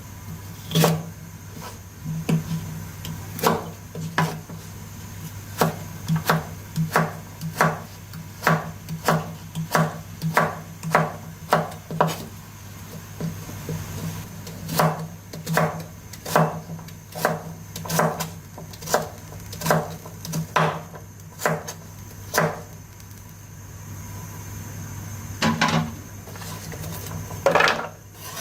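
Knife chopping on a wooden cutting board: a run of sharp, uneven knocks, about one or two a second, with a short pause about halfway through.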